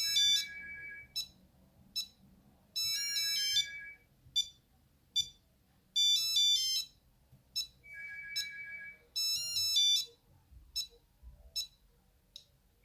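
Nokia 8210 mobile phone playing one of its monophonic ringtones: a repeating electronic beep tune of quick high runs and a fast two-note trill, with single short beeps in between.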